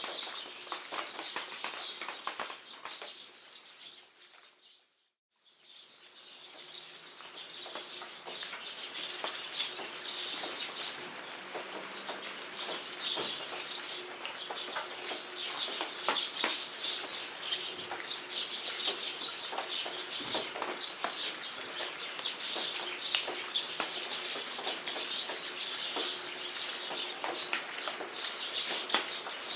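Steady rain pattering with many small drip clicks, and songbirds chirping over it. The sound fades out to near silence about five seconds in, then fades back up over the next few seconds.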